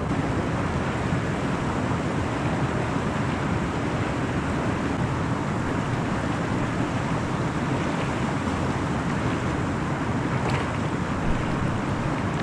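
Steady rushing of wind and water by the reservoir, with wind buffeting the microphone.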